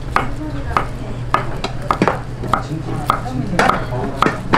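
A large kitchen knife chopping boiled pork offal and head meat on a wooden cutting board: a steady run of sharp knocks, nearly two a second, as each cut hits the board.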